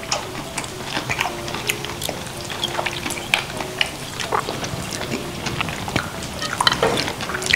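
Close-up wet chewing and lip-smacking of grilled whole beef large intestine (tongdaechang), its juicy fat bursting in the mouth: a steady run of short wet clicks and squelches.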